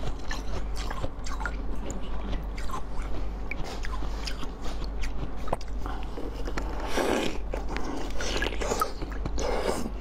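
A block of blue basil-seed ice bitten and chewed close to the microphone: scattered crisp cracks, with a long crunching burst about seven seconds in and another just before the end.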